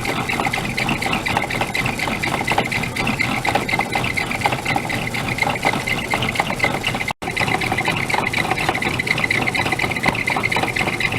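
Craftsman 109 metal lathe running, a steady mechanical whir with fine rapid ticking from its drive. The sound drops out for an instant about seven seconds in.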